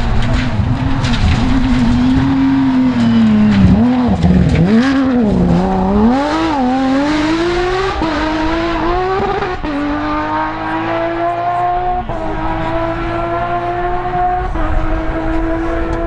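Porsche 997 GT3 rally car's flat-six engine at full throttle on gravel. The revs rise and fall several times as it slides through the corner, then it accelerates away through several upshifts, each a sudden drop in pitch followed by a steady climb.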